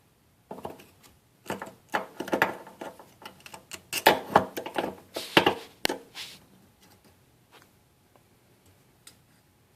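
Clicks, taps and scrapes of small faucet parts (the rubber seat washer, its spring and pliers) being handled and pulled out of the valve body, in a quick irregular run that stops about six seconds in.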